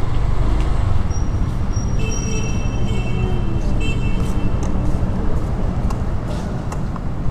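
Motorcycle engine running at low speed with a steady low rumble as the bike rolls slowly. From about a second in, a thin high squeal comes and goes for a few seconds.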